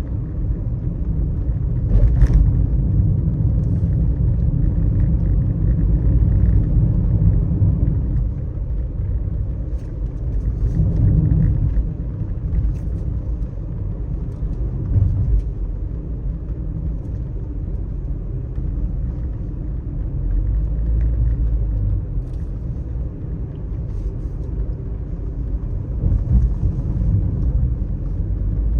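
Low, steady rumble of a car driving on a wet road: tyre and engine noise, with a few faint ticks now and then. It swells a little about two seconds in and again around eleven seconds.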